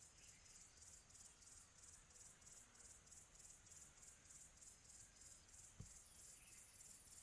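Crickets chirping faintly in a steady, high-pitched pulse several times a second, in a quiet tropical afternoon ambience. A soft low thump about six seconds in.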